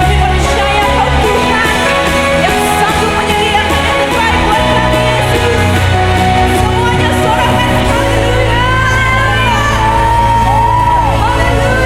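Live worship band music with singing: sustained keyboard-like chords over a steady bass, and from about two-thirds in a voice holds and bends long notes.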